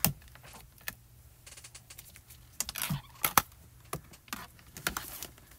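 Scattered clicks and knocks of a hard plastic stamping platform and clear stamp sheets being handled and cleared off a craft desk. The loudest knocks come at the very start and about three and a half seconds in.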